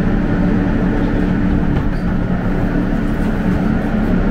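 R160 subway train rolling slowly along the platform and coming to a stop, heard from inside the car: a steady low hum over continuous rumble.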